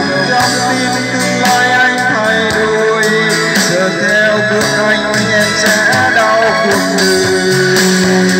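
A song with singing and guitar playing loudly and steadily through a JBZ 106 portable trolley (karaoke) speaker.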